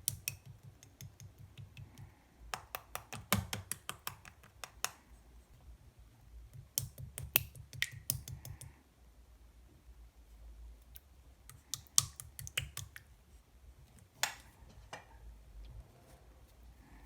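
Clear slime being pressed and squished by hand, giving clusters of sharp little clicks and pops.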